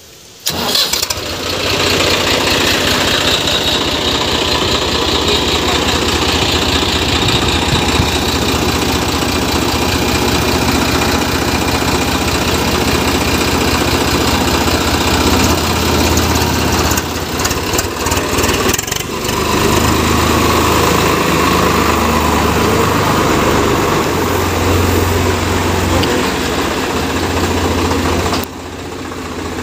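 Swaraj 744 FE tractor's three-cylinder diesel engine starting about half a second in, then running steadily as the tractor pulls away. The sound drops abruptly near the end.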